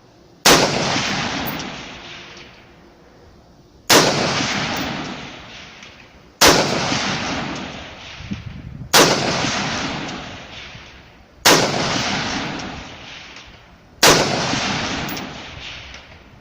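Six rifle shots from a WK180C .223 semi-automatic, fired slowly about two and a half seconds apart, each followed by a long rolling echo, with the ring of a steel ram target being hit downrange.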